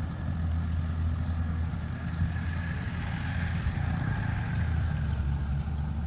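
Kubota DC 93 rice combine harvester working a paddy field: its diesel engine runs at a steady drone, with a higher whine from the machine that swells about halfway through.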